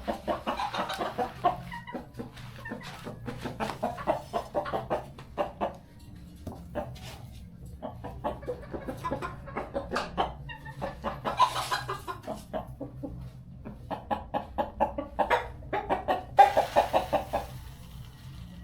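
Chickens clucking in repeated runs of short calls.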